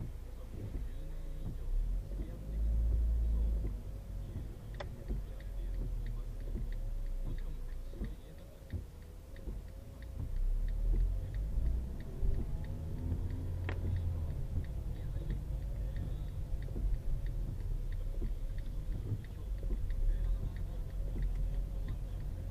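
Car interior noise through a dashcam's built-in microphone: a low road and engine rumble that swells and fades, with a faint steady repeating pattern and two sharp clicks, one about five seconds in and one about fourteen seconds in.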